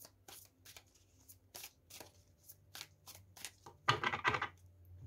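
A deck of large tarot cards being shuffled by hand: a run of quick card flicks, about three a second, then a brief louder rustle of cards about four seconds in.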